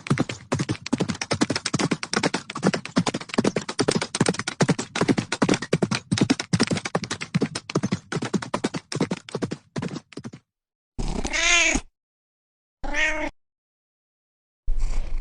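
Domestic cat meowing: two short rising-and-falling meows near the end, with another starting as it closes. Before them runs about ten seconds of rapid, rough, pulsing noise.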